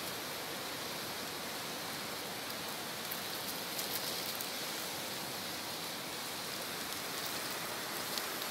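Chicken pieces sizzling in a wok over a wood fire, a steady rain-like hiss, with a few faint crinkles and clicks of seasoning being handled.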